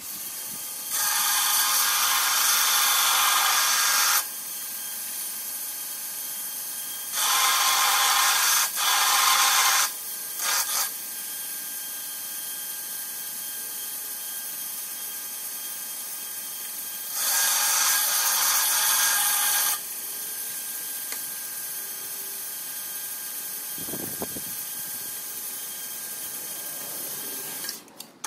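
Belt grinder switched on and running steadily, with three loud stretches of grinding, each about three seconds long, as the workpiece is pressed against the moving abrasive belt, and a few brief touches in between; it switches off just before the end.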